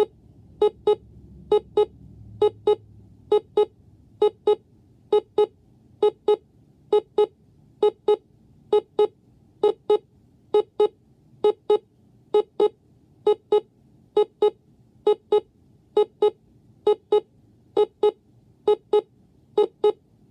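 Vector Storm Tracker Elite WC300 DSV alarm clock sounding its alarm: a steady run of double beeps, two short buzzy beeps close together, each pair repeating a little under once a second.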